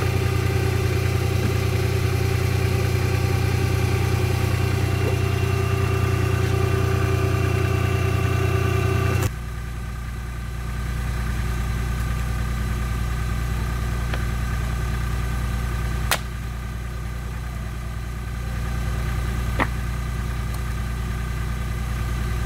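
Fendt Farmer 2 tractor engine running steadily at raised throttle, driving a log splitter from its 1000 rpm PTO. About nine seconds in, the sound cuts to a quieter, lower-pitched run of the same engine, and two sharp knocks follow a few seconds apart.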